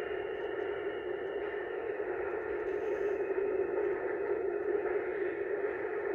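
New York City subway train running past close by at speed: a steady roar of steel wheels on the rails, with no let-up or change.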